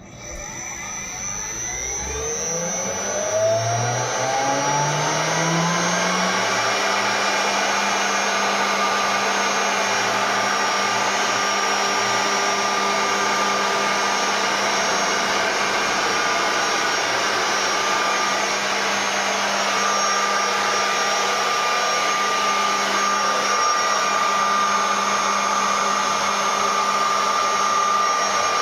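Mehta LX-1325 CNC router's spindle motor spinning up from a stop, its whine rising in pitch over the first six seconds or so, then running steadily at speed. The bit spins freely over the empty bed and is not cutting.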